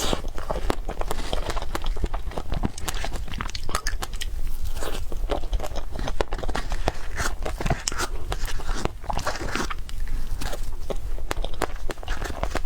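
Close-miked chewing and biting: a person eating cake, with a rapid, irregular run of small mouth clicks and smacks throughout.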